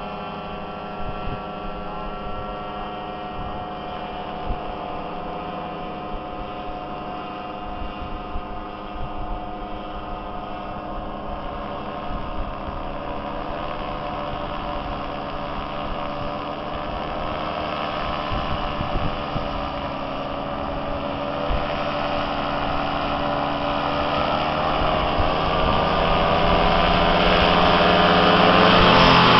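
Powered paraglider quad's engine and propeller running at a steady pitch, growing gradually louder as the trike rolls closer.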